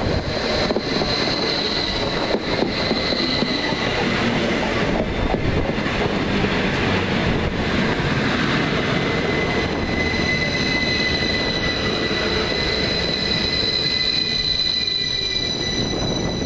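Northern Rail Class 333 electric multiple unit passing close at speed, its wheels rumbling on the rails. A steady high-pitched whine sounds with it and comes back strongly in the second half as the train runs away.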